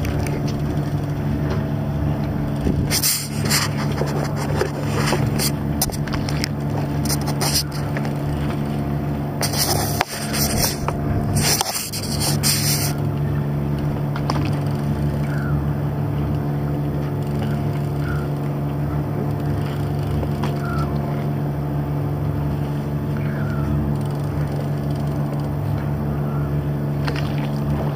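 A boat's engine running with a steady, even hum. A few loud rushing bursts break over it about three seconds in and again around ten to thirteen seconds in.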